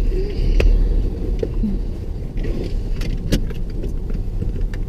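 Car running, a steady low rumble heard from inside the cabin, with a few sharp clicks and light rustling on top.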